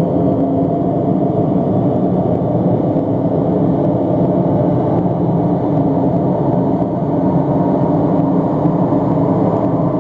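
Tornado sound effect: a loud, steady, deep noise with no breaks or sudden events.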